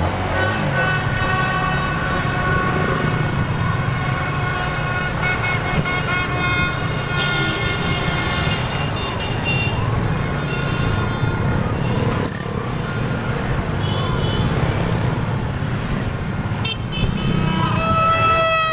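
Celebratory honking in motorbike traffic: several horns sound long held notes at once over the low running of scooter engines. The horns are thickest in the first half, and one slightly falling horn note comes near the end.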